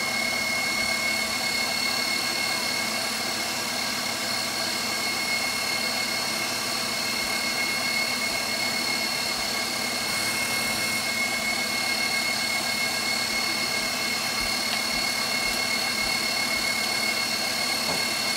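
KitchenAid Professional HD stand mixer running steadily, driving its pasta press attachment as it extrudes pasta dough: an even motor whine with a high tone.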